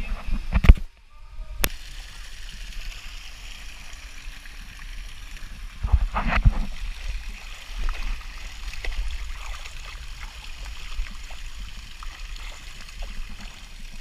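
Running, gurgling water with faint voices, broken by a loud thump just under a second in and another burst of thumps around six seconds.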